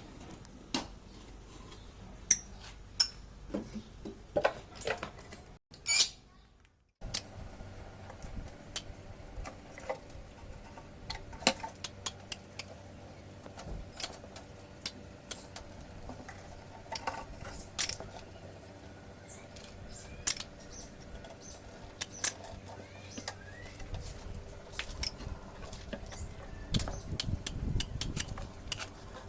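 Irregular sharp clicks and light clinks, scattered unevenly, with a brief drop to near silence about six seconds in.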